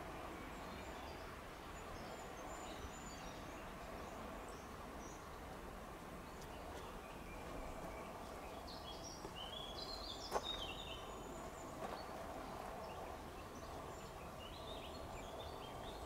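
Woodland ambience: a steady background hiss with short bird chirps and trills, clearest a little past the middle and again near the end, and a couple of sharp ticks.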